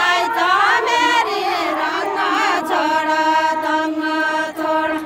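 A group of women singing a Deuda folk song together, their voices moving up and down in the first half and then holding one long steady note until near the end.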